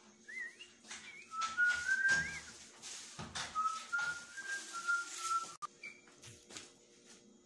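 Whistling: a few short wavering notes, then a run of steady, evenly pitched whistled notes, with knocking and clatter from a parrot moving about its wire cage. The sound cuts off abruptly a little past halfway, followed by one short higher whistle.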